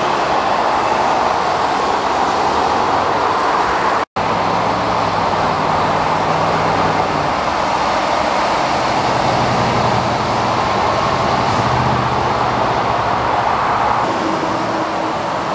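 Steady highway traffic noise: tyres hissing on wet pavement, with the low engine drone of passing trucks rising twice. The sound cuts out for an instant about four seconds in.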